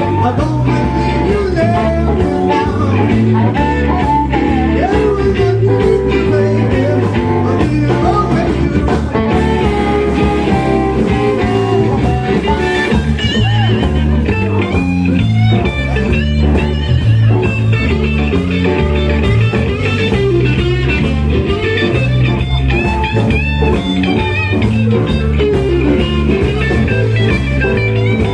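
A blues-rock band playing: guitar over bass and drums with a steady beat.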